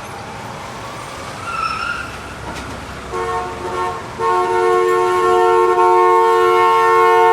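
Manhattan street traffic with a vehicle horn: two short honks about three seconds in, then a long held two-tone blast from about four seconds in, the loudest sound. Steady traffic noise runs underneath.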